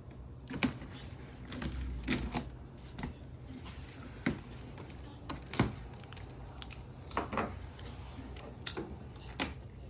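Cardboard box being opened and its packaging handled: irregular clicks, scrapes and rustles of cardboard, with a few sharper knocks.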